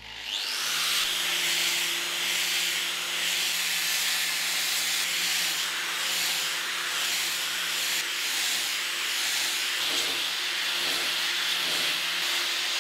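Angle grinder with an abrasive disc sanding the surface of steel square tubing: a steady, loud hiss over a low motor hum, starting about half a second in.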